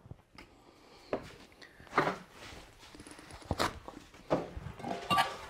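Several separate knocks and clicks, about a second apart: a metal DEF injector being handled and set down on a plastic tool-case lid.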